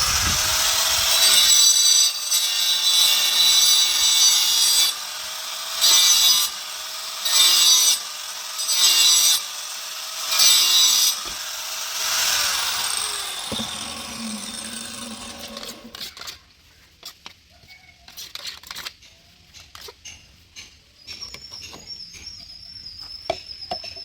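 A power tool cutting: one long run of about five seconds, then four short bursts about a second and a half apart, each with the motor's pitch rising as it starts. It fades and stops about two-thirds of the way in.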